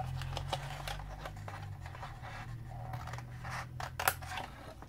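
Scissors snipping through cardstock in short, sharp cuts, with the stiff card crackling as it is handled; a low steady hum runs underneath.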